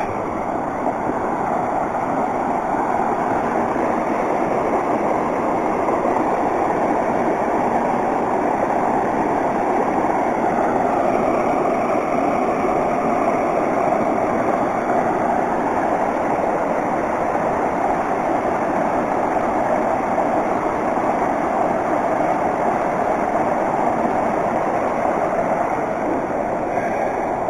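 Creek water rushing and splashing over rocks and small cascades, a steady, loud wash of noise.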